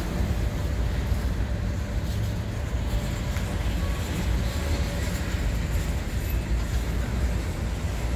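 Empty steel coal hopper cars of a freight train rolling past, a steady low rumble of wheels on the rails.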